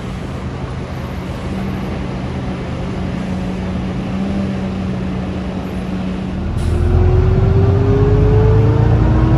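Steady hum of idling diesel buses. About six and a half seconds in it gives way to a louder sound from on board a Volvo B9TL double-decker, its six-cylinder diesel pulling away with a whine that slowly rises in pitch.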